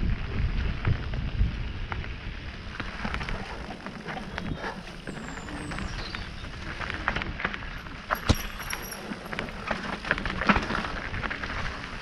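Mountain bike riding down a rough dirt and rock trail: tyres running over stones and the bike rattling with frequent sharp knocks, with wind rumbling on the camera microphone in the first couple of seconds.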